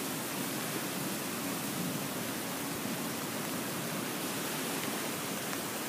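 Flash-flood runoff rushing down a shallow channel: a steady, even rushing of fast, churning muddy water.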